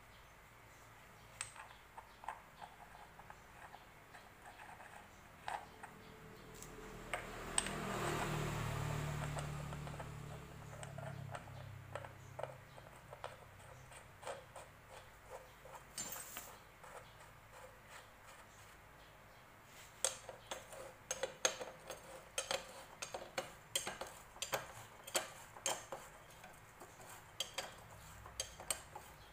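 Small metal motorcycle engine parts clinking and clicking as they are handled, with a dense run of quick clinks over the last third. A low rumble swells and fades about eight seconds in.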